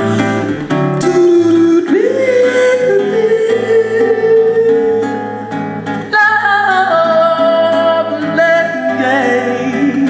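A woman singing long held, sliding notes over strummed acoustic guitar chords.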